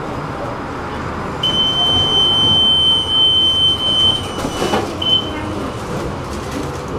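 Tram door warning signal: a steady, high electronic beep held for nearly three seconds, then a brief knock and a short second beep, over the steady running noise of the tram.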